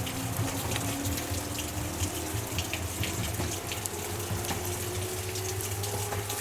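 Ohmi Railway electric train running, a faint motor whine rising slowly in pitch over a steady rushing noise with scattered clicks.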